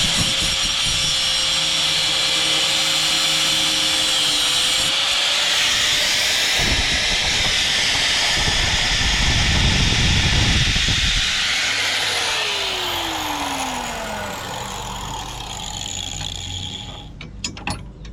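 Angle grinder cutting steel coil spring, running under load, then spinning down with falling pitch about twelve seconds in.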